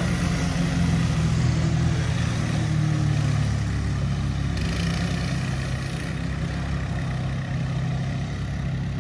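A vehicle engine running steadily close by, its pitch shifting slightly partway through.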